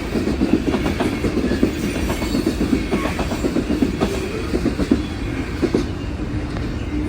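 Freight train cars rolling past at speed, their wheels clicking and clattering steadily over the rail joints, with the clicks thinning out near the end.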